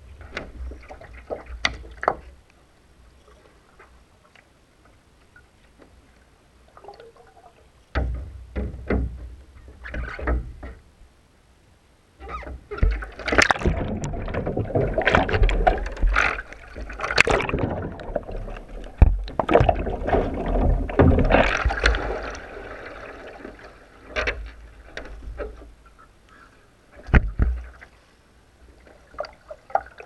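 Sea kayak capsizing and being rolled back upright in a butterfly roll, heard from a microphone on the kayak's bow deck. Light splashes and knocks of hull and paddle come first. Then comes a loud rush of churning, sloshing water for about ten seconds in the middle as the microphone goes under and comes back up, and a few small splashes and drips follow.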